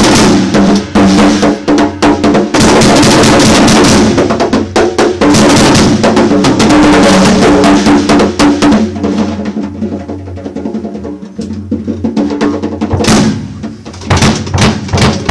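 Drum kit played fast and loud, with dense drum hits and cymbal crashes. From about nine seconds in the playing drops to a quieter stretch of drum strokes struck with bare hands on the snare. Loud, sharp hits come back near the end.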